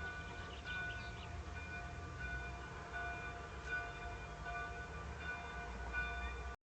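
Interference on the webcam's audio: a steady whine of several tones, swelling and fading, over a low hum. It cuts out briefly near the end.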